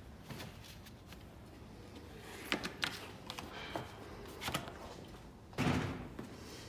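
Light handling noises of an oil filter cap and its freshly oiled seal ring: a few soft clicks and rubs, with a louder rustle or bump about five and a half seconds in.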